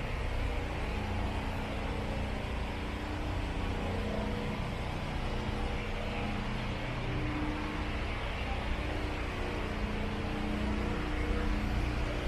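Steady downtown street noise with car traffic going by.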